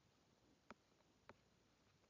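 Near silence, with two faint short ticks about half a second apart: taps on a tablet touchscreen while handwriting on it.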